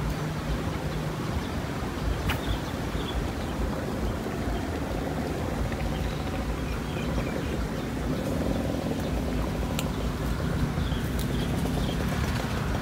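Steady low outdoor rumble with faint, scattered bird chirps, broken twice by a sharp click, once about two seconds in and once near ten seconds.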